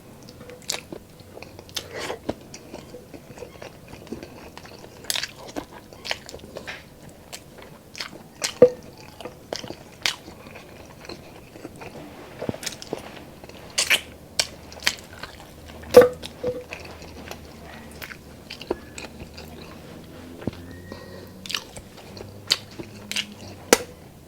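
Close-miked chewing of pork adobo and rice: wet mouth sounds with irregular sharp clicks and crunches, two of them much louder, about a third of the way in and two thirds of the way in.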